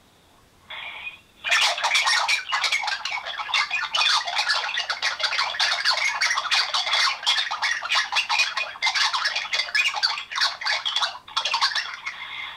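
Unexplained noise on a mobile phone call: a short crackle, then about a second and a half in a dense, rapid crackling and chattering that runs almost to the end, with no low end, as sound over a phone line has.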